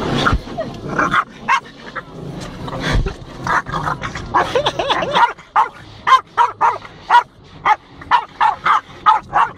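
Boston Terrier barking in many short barks, which come quicker and closer together through the second half.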